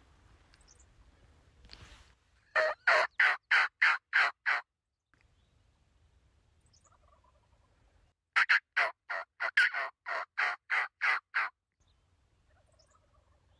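Two runs of turkey yelps, about seven notes and then about a dozen, evenly spaced and loud, from a hunter's turkey call imitating a hen to draw in a gobbler.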